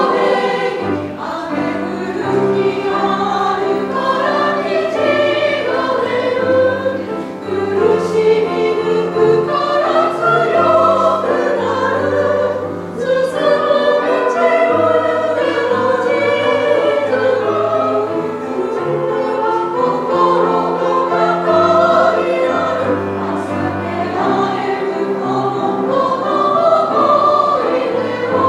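Women's choir singing in several parts with grand piano accompaniment.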